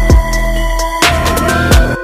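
Background electronic music with a heavy bass-drum beat under held synth notes.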